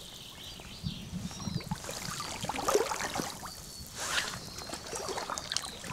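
River water sloshing and trickling around an angler's waders as he stands in the current playing a fish, with scattered small splashes.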